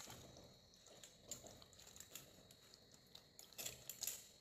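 Faint wet squelching and light clicks of chopsticks turning marinated rat meat in a stainless-steel bowl, a little louder near the end.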